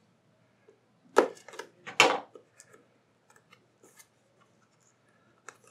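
Wrapping being opened on a small box: two short, sharp noises a little under a second apart, then faint clicks and rustles as the box is handled.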